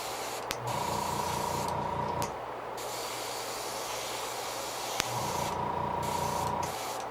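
Airbrush spraying orange paint onto a fishing lure: a steady hiss of air and paint. A low pulsing hum comes in twice, and there are a couple of light clicks.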